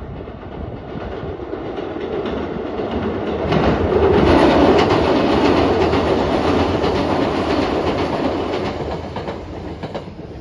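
Sanyo Electric Railway electric train crossing a steel girder bridge: a rumble with rapid wheel clacks over rail joints that swells over the first few seconds, is loudest as the cars pass, then fades away.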